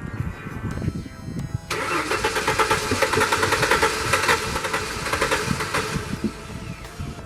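A 1994–98 Ford Mustang's engine being cranked by the starter for about five seconds, starting abruptly and fading near the end, without settling into a steady idle.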